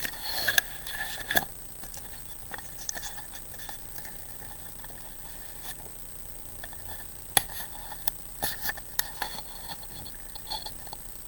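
Scattered light taps and clinks of small hard objects, thicker at the start and again about seven to nine seconds in, over a faint steady high-pitched whine.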